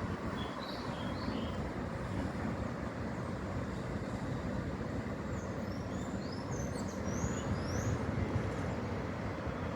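Steady low rumble of street traffic, with short rising bird chirps about half a second in and again in a cluster in the second half.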